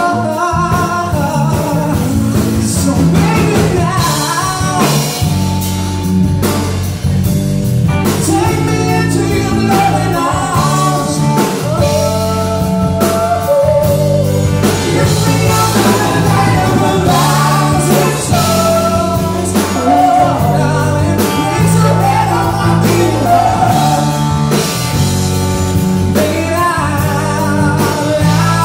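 Live band music: a male singer singing over electric guitars, bass and a drum kit.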